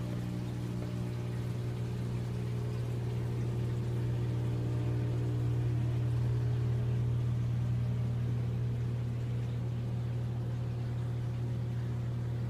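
Aquarium pump running with a steady low hum, water moving under it.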